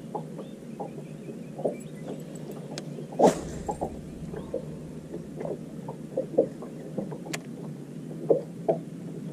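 Small waves lapping against a boat hull, giving a run of irregular soft knocks over a low steady rumble, with one louder sharp thump about three seconds in.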